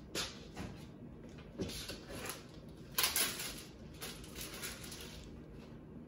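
Packaging rustling and small parts being handled while robot vacuum accessories are unpacked from their box: a run of short rustles, with the loudest burst about three seconds in.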